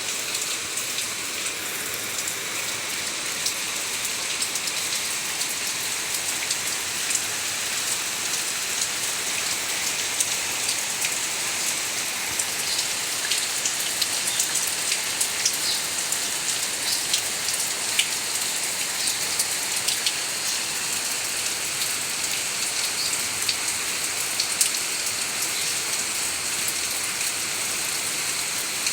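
Heavy, steady rain falling, a constant hiss with many individual drops ticking sharply on hard surfaces.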